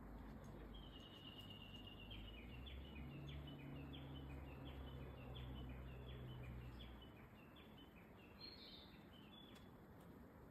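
A small songbird singing faintly: a short run of notes, then a string of quick repeated chirps at about two a second for several seconds. A low steady hum sits underneath for the middle part.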